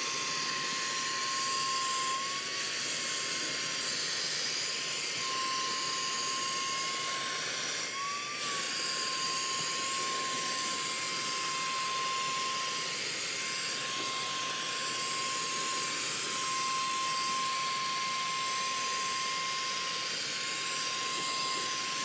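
One EV handheld cordless car vacuum running on its higher power setting, sucking along floor-mat crevices: a steady high-pitched whine over rushing air. The whine lifts briefly in pitch about eight seconds in.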